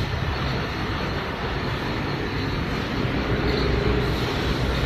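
RM-J12A3 automatic riveting machines running, a steady dense mechanical clatter over a low hum.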